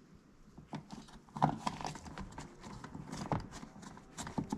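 Irregular hard plastic knocks and clicks of a car door-panel trim cover being handled and pressed into its pocket, a few louder taps among them.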